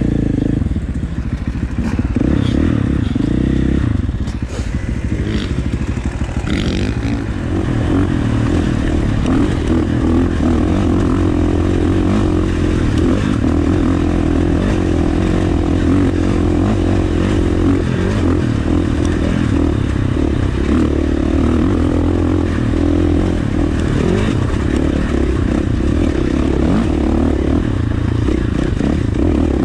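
A KTM 450 dirt bike's four-stroke single-cylinder engine running under way, heard close from an on-board GoPro. The engine eases off briefly a few seconds in, then pulls steadily. There is clattering from stones and the bike over the rocky trail.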